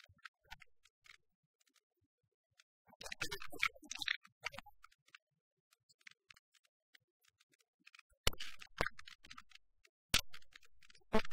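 Sparse faint clicks and crackle, with a burst of rustling about three seconds in and a few sharp knocks near the end.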